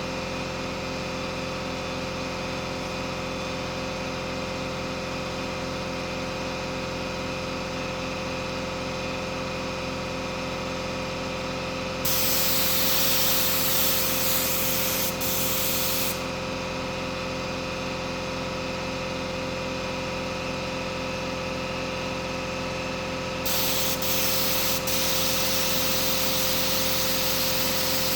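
A steady machine hum with several fixed tones runs throughout. About twelve seconds in, and again near the end, a loud hiss of spraying air comes in for a few seconds, breaking off briefly once each time.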